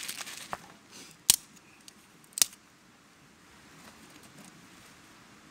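Crumpled newspaper rustling briefly at the start, then a few short sharp clicks, two of them loud and about a second apart, from handling paper and kindling in a steel fire pit.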